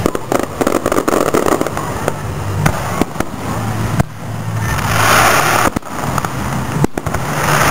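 Fireworks going off: a string of sharp bangs, with swells of crackling about five seconds in and again near the end.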